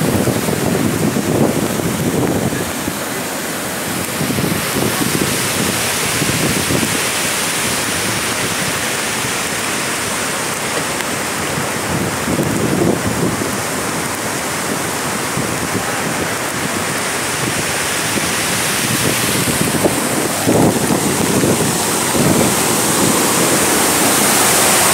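Steady rushing of rain and wind, with wind gusting on the microphone every so often. Over the last few seconds the rush grows louder as the water pouring over the dam's full spillway comes close.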